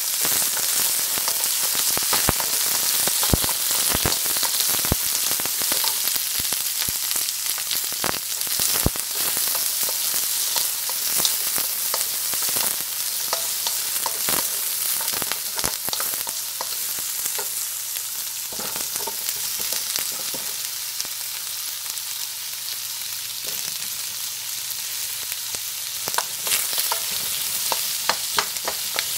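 Green capsicum and garlic sizzling in hot oil in a wok, with a steady hiss. A wooden spatula stirs them, clicking and scraping against the pan now and then, more often near the end.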